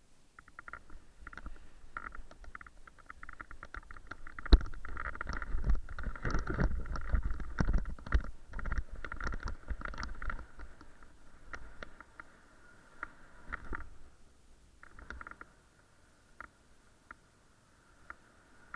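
Wind buffeting the microphone in gusts, loudest for several seconds in the middle, with many short clicks and knocks mixed in during a paraglider's reverse launch.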